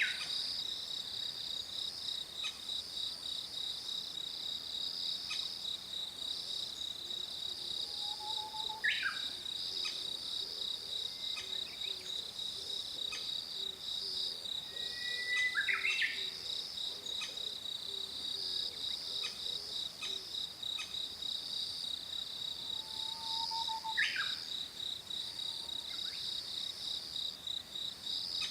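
Crested kingfisher calling: a short, sharp call about every seven or eight seconds, four times, over a steady, high, pulsing insect trill. The adult is calling with food in its bill to lure its nearly fledged chick to the nest-hole entrance.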